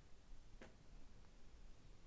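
Near silence: room tone, with one faint click about half a second in and a fainter one a little after a second.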